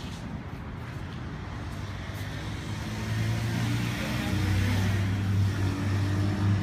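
An engine running with a steady low hum that grows louder about halfway through.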